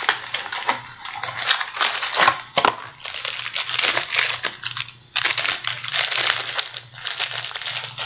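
Plastic wrapper of a pack of butter cookies crinkling and crackling as it is handled and worked open, with a short pause about five seconds in.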